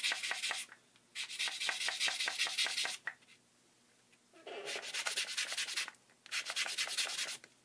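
Wooden orange stick (cuticle pusher) rubbed back and forth on a hand-held sanding pad to clean and sharpen its tip: quick scratchy strokes, about six a second, in four bouts with short pauses between.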